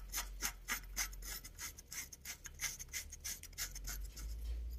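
Rhythmic rasping, about four short strokes a second, from a wrench tightening the nut on a bushing extractor's threaded rod, drawing a worn swingarm bushing out of a motorcycle swingarm.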